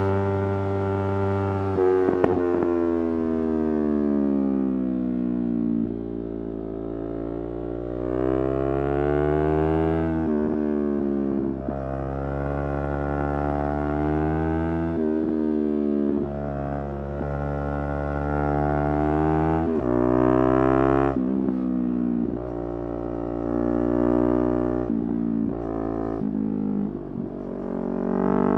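Yamaha R3's 321 cc parallel-twin engine running under way. Its pitch climbs as the bike accelerates and drops sharply at each gear change, several times, with a slow fall as it eases off.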